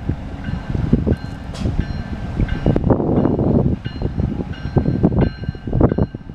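Railroad cars rolling on the track: an irregular clatter and rumble of wheels, with faint high squealing tones coming and going.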